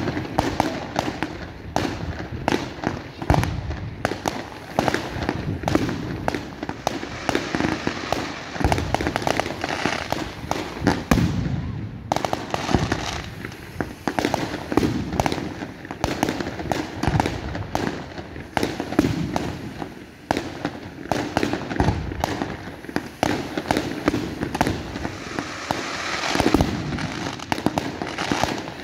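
Aerial fireworks bursting: a long, dense run of sharp bangs in quick succession, with a brief lull about twelve seconds in.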